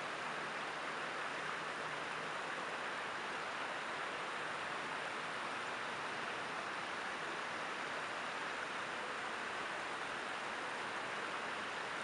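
Creek water rushing over a shallow rocky riffle, a steady even rush.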